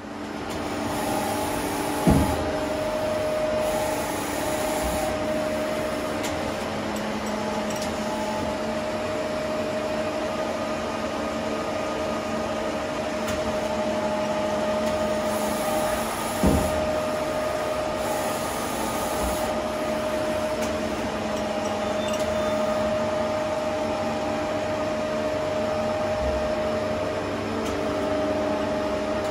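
Powered-up Daewoo (Doosan) Puma 400B CNC lathe running with a steady mechanical hum and a constant whine. A short knock comes about two seconds in and another just past the middle.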